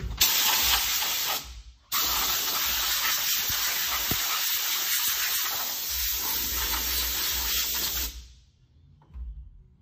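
Compressed air hissing from an air-hose nozzle held to a wire-spoke wheel: a short blast, a brief break, then one long steady blast of about six seconds that cuts off suddenly.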